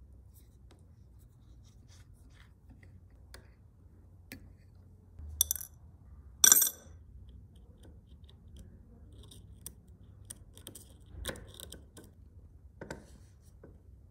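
Light clicks and scrapes of small metal parts being handled, then two sharp clinks about halfway through as the screws and a curved metal strip are dropped into a ceramic bowl of liquid. Near the end a few more small clicks come from a screwdriver working at a screw in the frame.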